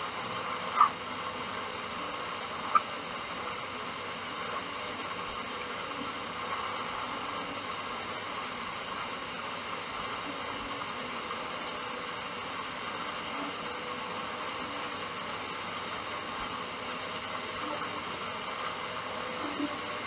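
Hoover Dynamic 1400 washing machine with its drum at rest, giving a steady low hiss, with two short sharp clicks in the first three seconds.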